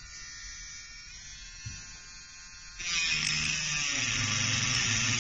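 Handheld electric rotary tool with a diamond cutting disc running with a faint whine, then, about three seconds in, much louder grinding as the disc bites into the workpiece.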